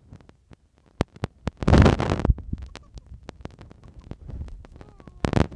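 Handling noise on a hand-held camera's microphone: scattered clicks and knocks, with a loud rumbling burst about two seconds in.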